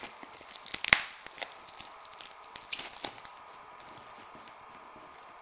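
Padlock packaging being handled and opened: a sharp crack about a second in, then scattered clicks and crinkles that thin out in the second half.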